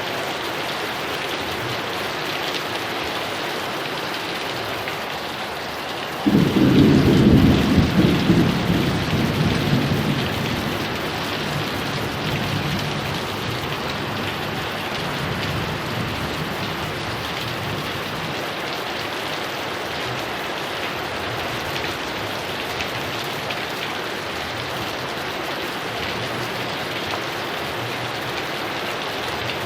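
Heavy rain falling steadily. About six seconds in, a thunderclap breaks suddenly into a loud low rumble that dies away over several seconds.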